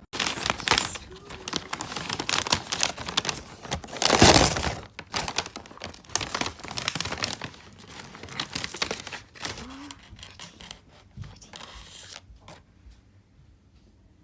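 Dense crinkling and crackling, as of crumpled material, with a louder rushing burst about four seconds in; it thins out toward the end.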